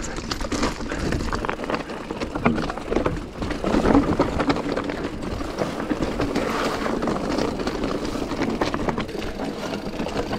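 Mountain bike riding down a rough trail: a continuous clatter of many quick knocks and rattles from the bike and tyres over stones, over a steady low rumble of wind on the microphone.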